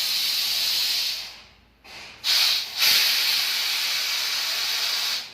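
Compressed air hissing in three blasts from a pneumatic tyre changer's bead breaker as it is worked to press down a tyre bead: a long blast stopping about a second in, a short one about two seconds in, and a long one after it.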